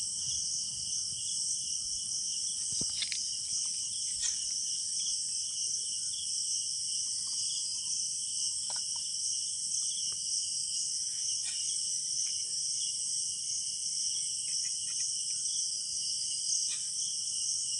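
Night insects, crickets among them, chirring in a steady high-pitched chorus, with a few faint ticks.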